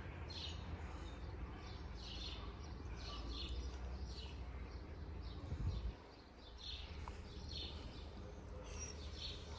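Small birds chirping on and off, short high chirps every second or so, over a faint low outdoor rumble. The rumble swells briefly and stops about six seconds in.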